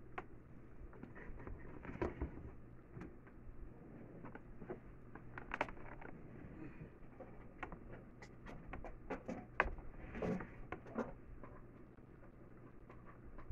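Scattered light clicks and knocks, thickest about eight to eleven seconds in, over a faint low steady hum.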